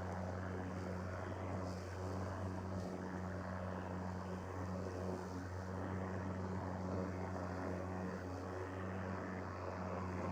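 Ryobi 40-volt brushless battery lawnmower running under load while cutting grass, its motor and spinning blade giving a steady low hum.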